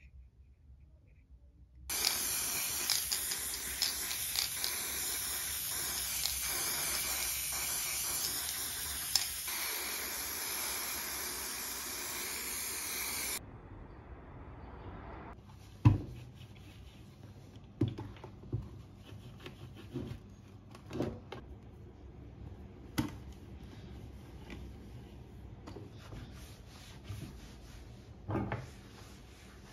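Aerosol spray-paint can spraying: one long continuous hiss that starts about two seconds in and stops suddenly some eleven seconds later. After that, a scattering of light knocks and a soft rub near the end.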